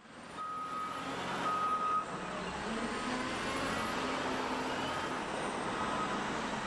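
Heavy construction vehicle engine running steadily, with a reversing beeper sounding twice in the first two seconds and then more faintly.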